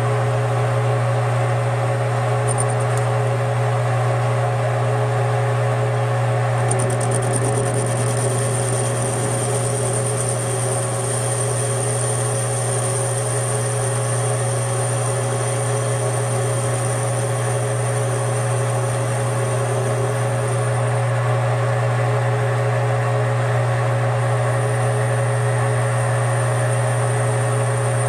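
Metal lathe running steadily as a turning tool cuts the end of a steel hydraulic fitting, under a constant low motor hum. A thin high whine comes in about seven seconds in, drops out for a few seconds past twenty, then returns.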